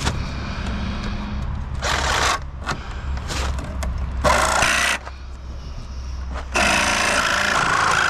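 Power saw cutting through nails in wooden boards: a few short bursts, then a longer steady cut starting near the end. A low engine hum runs underneath.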